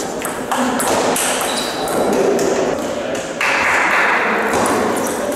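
Table tennis rally: a quick series of sharp clicks as the celluloid/plastic ball is struck by the rubber-faced bats and bounces on the table. A steady rushing noise joins in about halfway through.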